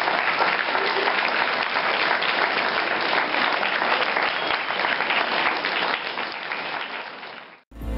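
Audience applauding, a dense steady clapping that fades toward the end and cuts off suddenly.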